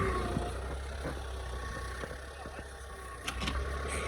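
Mini excavator's diesel engine running steadily, a low hum, with a couple of short clicks a little past three seconds in.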